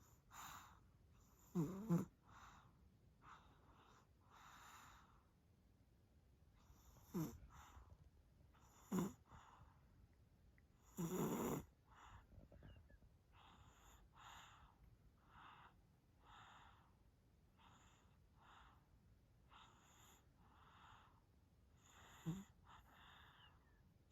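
A sleeping baby snoring softly: light breaths about once a second, broken by a few louder, deeper snores, the longest about eleven seconds in.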